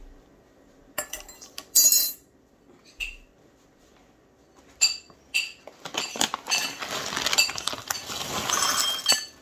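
A thick plastic Chex Mix bag crinkling in the hands a few times, then, from about six seconds in, snack mix pouring out of the bag into a glass bowl with a dense rattle and clink of hard pieces.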